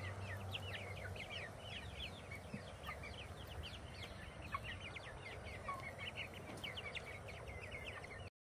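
A flock of young pullets peeping: many short, high chirps, each falling in pitch, overlapping in a steady chatter. The sound cuts off suddenly near the end.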